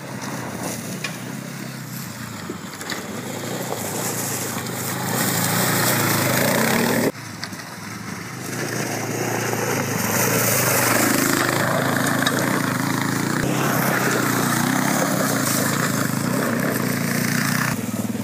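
Sport ATV engine running as the quad is ridden toward the microphone, growing louder over the first six seconds. It cuts off abruptly about seven seconds in, then comes back loud and stays loud as the ATV runs close by.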